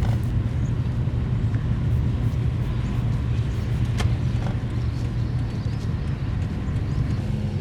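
Toyota Yaris being driven, heard from inside the cabin: a steady low rumble of engine and road noise.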